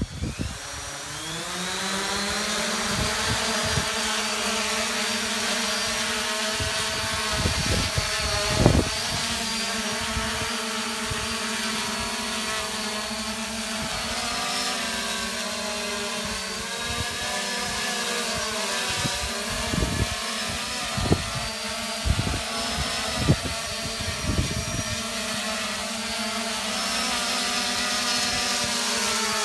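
3D Robotics Iris+ quadcopter's electric motors and propellers spinning up with a rising whine over the first couple of seconds, then a steady buzzing drone whose pitch wavers as it lifts off and hovers. Irregular low thumps of wind on the microphone come and go throughout.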